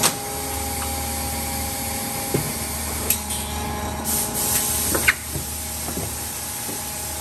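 Industrial plastics machinery running: a steady hum with a few short hisses of air and knocks.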